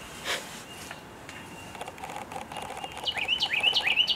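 A bird chirping: a quick series of short falling notes, each ending in a brief level whistle, about three a second, in the second half. A short noise just after the start.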